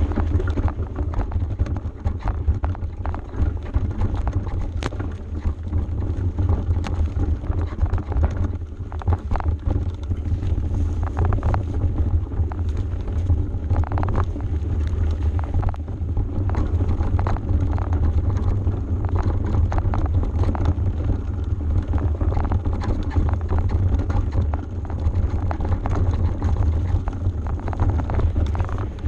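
Mountain bike rolling fast down a dirt singletrack: wind buffeting the camera microphone as a steady low rumble, over constant rattling and knocking from the knobby tyres and bike going over bumps and stones.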